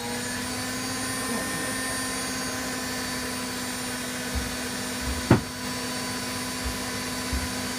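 Candy Aquamatic 1000T compact washing machine spinning its empty drum, a steady motor whine. A sharp knock comes about five seconds in, with a few faint low thumps around it.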